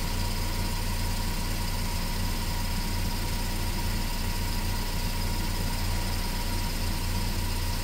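2012 Ford Focus engine idling steadily, with its alternator charging under added electrical load.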